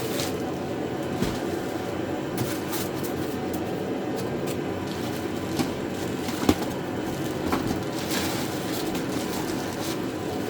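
Scattered light knocks and rustles of welding-cart parts being unpacked and handled, the loudest knock about two thirds of the way through, over a steady low background hum.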